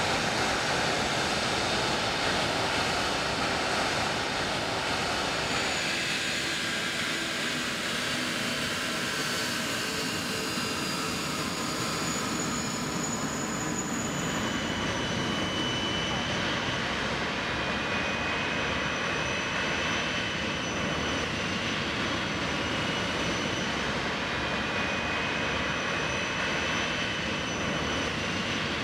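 Airliner jet engines running at ground idle: a steady rush with high turbine whine tones, from an Airbus A380 and then a Boeing 747-400 on the apron. The sound changes character about six seconds in and again around fourteen seconds.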